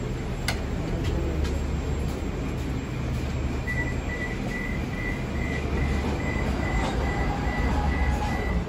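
Inside a Moscow Metro car: steady rumble and hum of the train. About four seconds in, a high beep starts repeating evenly, roughly three times a second: the warning signal that the doors are about to close.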